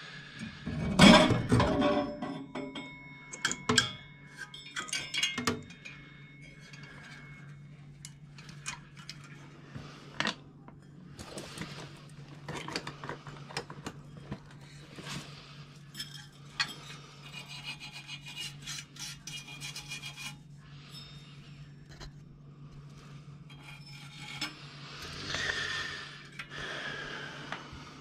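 Sheet-metal furnace parts being handled and pulled out: rubbing, scraping, clinks and knocks, loudest about a second in, over a steady low hum.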